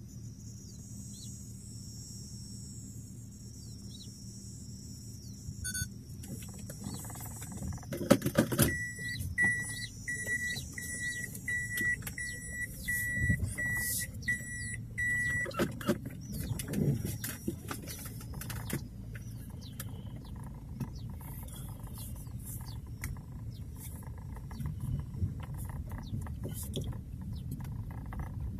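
Car engine heard from inside the cabin, idling at first under a high steady whine, then clicks and knocks and an electronic beep repeating quickly for about six seconds as the car starts to move. The car then drives slowly over a rough dirt track with a steady low rumble and small knocks and rattles from the bumps.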